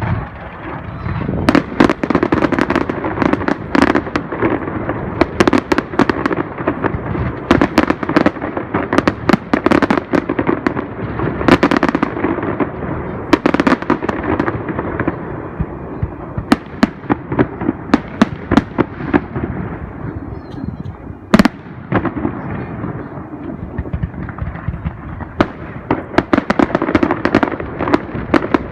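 Fireworks display: shells bursting in quick, near-continuous succession, a dense run of bangs that thins briefly about two-thirds of the way through.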